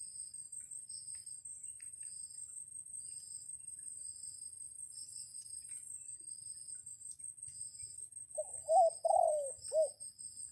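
A dove cooing: one short phrase of a few notes about eight seconds in. Behind it runs a steady high-pitched insect drone with a regular pulsing chirp.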